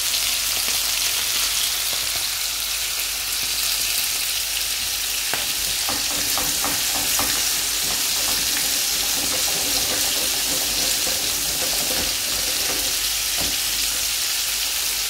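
Anchovies coated in corn flour sizzling steadily in hot oil in a frying pan, a constant crackling hiss of fish frying.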